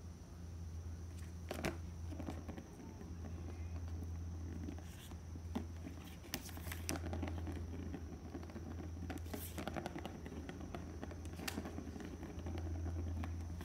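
A Maine Coon kitten's paws scampering and scuffling on a floor as it plays, a scattering of light taps and knocks, over a steady low electrical hum.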